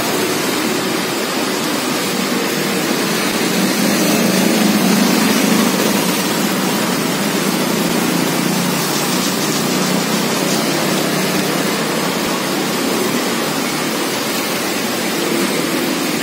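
Steady, loud rushing background noise with no distinct events, swelling slightly about five seconds in.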